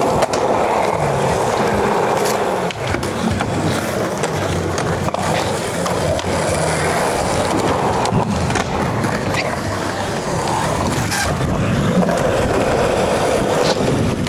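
Skateboard wheels rolling on concrete in a steady rumble, with a few sharp clacks of the board as it is popped and landed during tricks.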